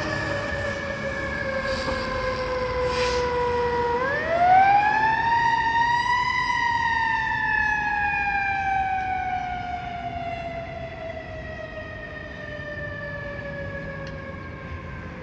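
Fire engine siren winding down, then about four seconds in winding back up to a peak and coasting slowly down again, growing fainter toward the end.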